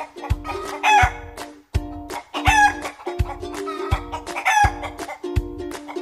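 Chicken calls, three of them, laid over background music with a steady bass-drum beat.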